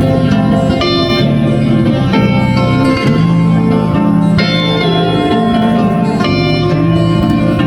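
Background music: plucked-string instrumental melody over a steady low accompaniment.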